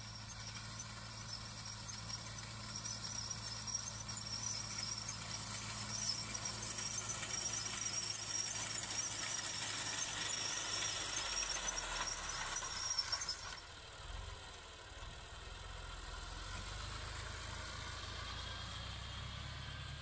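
Tractor engine running as a front-mounted reaper cuts standing wheat, with a high-pitched squealing whine from the reaper that grows louder as it comes close. The whine cuts off suddenly about two-thirds of the way through, leaving the tractor's low engine running.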